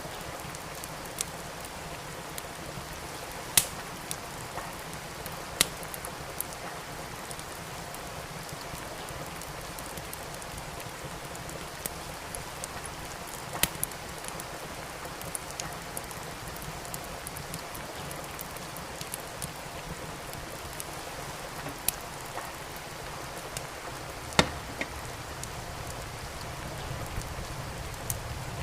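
Steady rain with a wood fire crackling in a fireplace: an even hiss of rain, broken by scattered sharp pops and snaps from the burning logs, a few of them louder than the rest.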